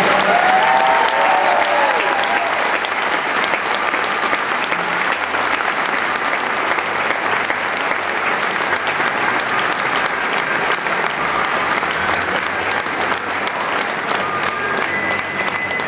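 Large crowd applauding: many hands clapping in a dense, steady patter throughout.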